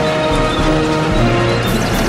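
Background film score music with held notes that shift in pitch over a steady low bed.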